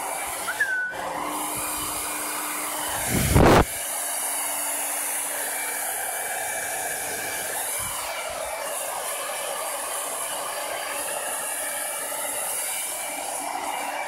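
Handheld hair dryer blowing steadily with a continuous rushing hiss. About three seconds in, a brief loud burst of noise stands out as the loudest moment.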